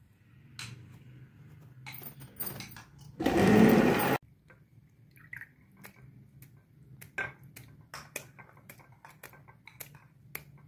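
Hands scooping and squeezing fresh homemade butter out of buttermilk in a metal pot: wet splashing, squelching and dripping, heard as a run of short clicks and drips. About three seconds in there is a loud rush of noise lasting about a second that stops abruptly.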